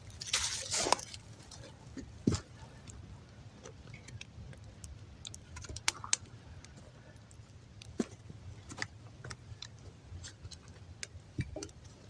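Sparse small clicks and pops with a few soft rustles near the start, a knock about two seconds in and another near the end, over a faint low rumble.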